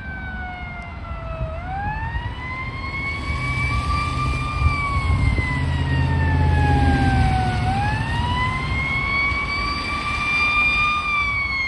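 Fire engine siren on a slow wail, its pitch sweeping up and down about every six seconds, growing louder as the engine approaches. A low vehicle rumble sits beneath it for a few seconds in the middle.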